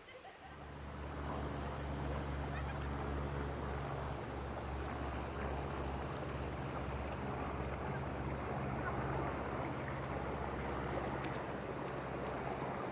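Motor boat engine running steadily as a boat passes close, a low hum that comes in about half a second in and builds over the next second, with a steady rushing noise over it.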